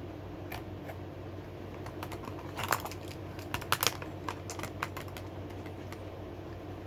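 Small fidget toys and bits being handled and set down: a scatter of light clicks and taps, busiest around the middle, over a steady low room hum.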